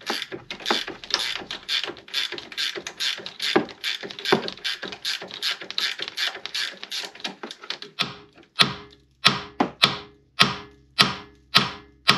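Ratchet wrench clicking as a suspension nut on the front steering knuckle is undone: quick, uneven clicking at first, then about eight seconds in a run of sharp, separate metallic clicks, about two a second.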